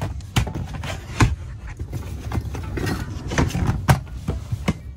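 Handling noises from rummaging through a plastic storage bin: repeated knocks, clicks and clatter of gear being moved, with rustling of plastic bags. A steady low rumble runs underneath.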